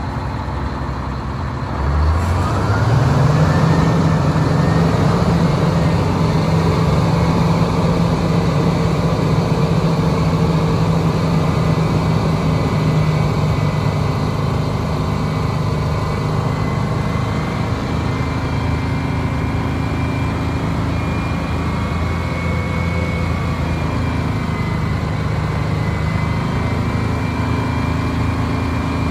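1989 Crown Super Coach school bus's diesel engine revving up about two seconds in and held at high speed, easing off briefly near the end before rising again.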